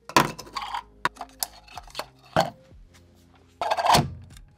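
Handling noise from a small plastic bucket holding a Raspberry Pi: a sharp knock as it is picked up, a few light clicks and taps, then a louder clatter near the end as it is set down on a hard surface.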